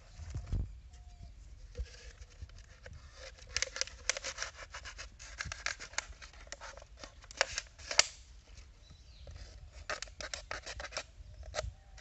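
Knife cutting and scraping through a thin plastic bottle: a quick run of crackling snips and sharp clicks that comes in clusters through most of the stretch.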